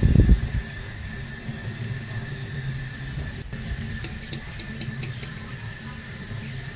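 A wire skimmer handled over a steel pot: a low knock at the start, then a quick run of about six light metal ticks about four seconds in, over a steady low hum.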